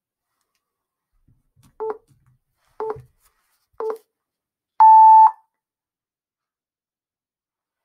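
Countdown timer beeps: three short beeps a second apart, then one longer, louder, higher beep that marks the start of the two-minute timer.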